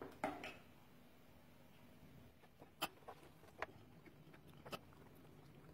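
A cooking utensil clicking faintly against a pan a handful of times while béchamel is stirred into sautéed radicchio, the sharpest click about three seconds in.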